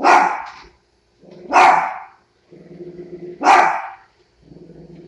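Dachshund barking at a robot vacuum cleaner: three sharp barks about two seconds apart, each preceded by a short low growl.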